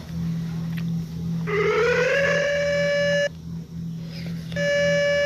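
Outdoor tornado warning siren: a tone rises in pitch for about a second, holds steady, then cuts off abruptly; a second short steady blast at the same pitch comes near the end. A steady low hum runs underneath.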